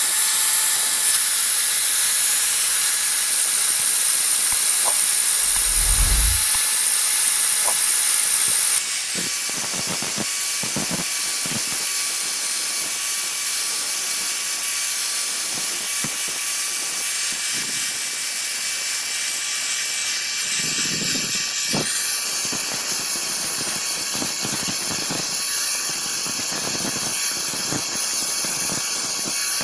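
Handheld angle grinder grinding the steel of a pair of forged blacksmith's tongs: a steady, loud hissing grind over a high motor whine. The whine steps up in pitch about nine seconds in.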